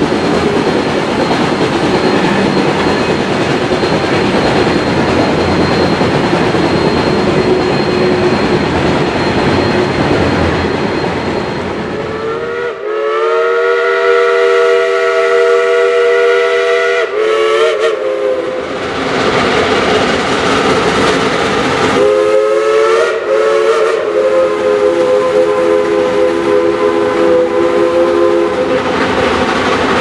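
Railroad cars rolling past with a steady rumble and clatter of wheels on rail. About thirteen seconds in, a Shay geared steam locomotive's whistle blows a long blast of several notes at once, sliding up at its start, then a short toot. A few seconds later it gives a second long blast, with the train's running noise between and after.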